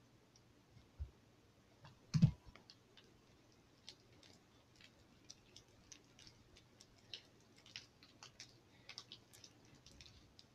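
Freshly activated glue slime being worked by hand and with a plastic fork: faint, scattered sticky clicks and smacks as it is pulled and kneaded. Two dull knocks about one and two seconds in, the second the loudest.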